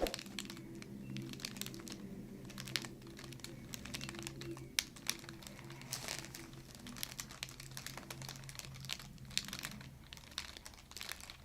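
Irregular crinkling and rustling with many small soft clicks as the patient shifts on a chiropractic treatment table, over a low steady hum.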